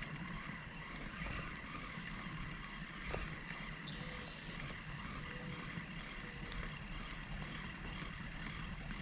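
Faint outdoor ambience: a steady low rumble and hiss with a few small ticks scattered through.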